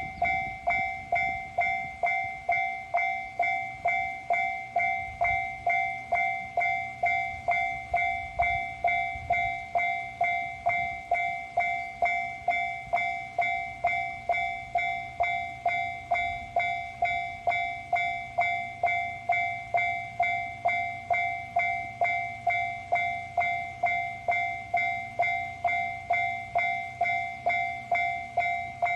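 Japanese railroad crossing alarm clanging steadily, a little over two strikes a second, each a ringing electronic ding that fades before the next. Beneath it a diesel railcar's low rumble, heaviest in the first ten seconds, settles into a steady low hum.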